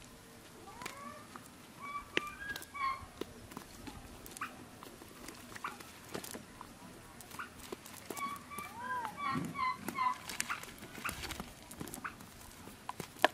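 An animal calling in short pitched chirps, in two clusters: about a second in and again from about eight to ten seconds in. Between and under them, light clicks and rustles of a nylon cast net being handled and caught fish flapping on grass.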